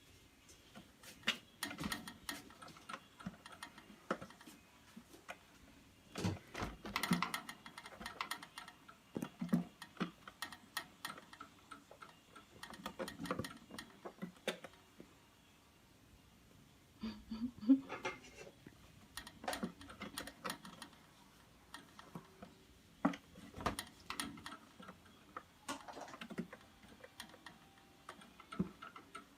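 Irregular light taps, clicks and rustling from cats moving and scuffling about.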